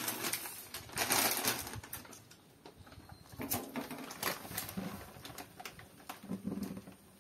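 Plastic wrapper of a Maggi instant-noodle packet crinkling as it is handled and opened, in two loud rustling spells during the first two seconds. After that come a few scattered light clicks and taps.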